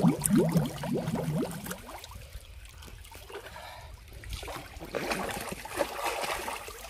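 Pool water sloshing and gurgling close by as someone moves in it, with a quick run of bubbly chirps in the first couple of seconds, quieter in the middle, and more splashy water noise near the end.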